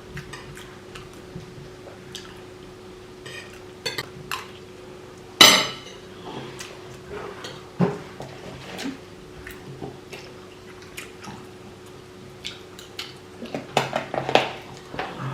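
Spoons and cutlery clinking and scraping on plates while people eat, in scattered short clicks. There is a louder, sharper sound about five seconds in, and the clinks come more often near the end, over a faint steady hum.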